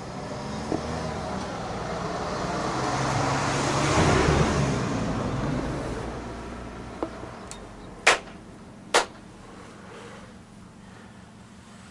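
A car passing on the road, swelling to its loudest about four seconds in and then fading. Then two sharp hand claps about a second apart, the ritual claps of worship at a Shinto shrine.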